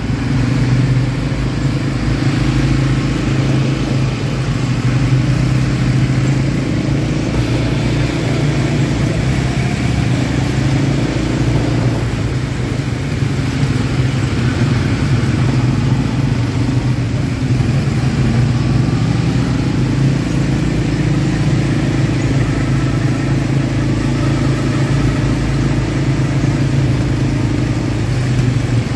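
ATV engine running steadily while riding, its note holding at a nearly constant pitch with small rises and dips.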